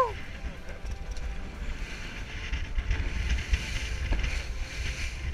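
Inflatable boat running through rough sea: wind buffeting the microphone in a steady low rumble over the hiss of rushing water and spray.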